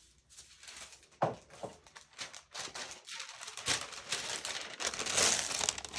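A sheet of wax paper crinkling and rustling as it is handled, with a dense run of crackles that is loudest near the end.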